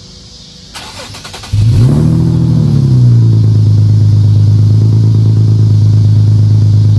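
Infiniti G37's catless VQ37VHR V6 cranking on the starter for under a second, then catching about a second and a half in with a brief rev flare, and settling into a loud steady idle.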